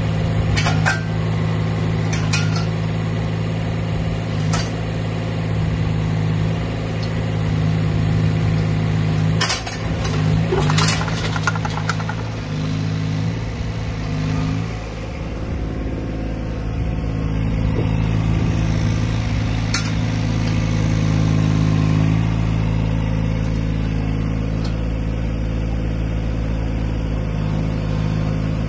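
Yanmar VIO12 mini excavator's small diesel engine running steadily while the boom, arm and bucket are worked, the note swelling a little under hydraulic load. A few sharp metallic knocks come through, with a cluster of them about ten seconds in.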